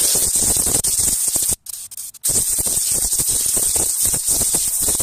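Compressed-air blow gun blasting air over the top of a plastic fuel tank around the fuel pump locking ring: a loud, steady hiss that stops briefly about a second and a half in, then starts again.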